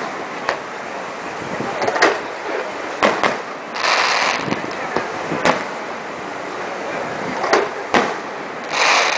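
Aerial fireworks shells bursting, about seven sharp bangs at uneven intervals of one to two seconds, with two short stretches of hiss, one around the middle and one near the end.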